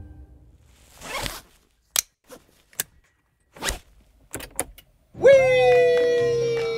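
A rustle and a string of sharp clicks and knocks inside a car, including the push-button start being pressed. About five seconds in, two voices break into a loud, long, held cry, which swoops up at the start; one voice stops about a second before the other, which slowly fades.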